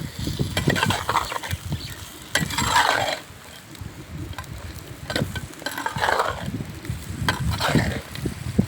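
A utensil stirring food in a cooking pan, with several scraping strokes and clicks against the pan.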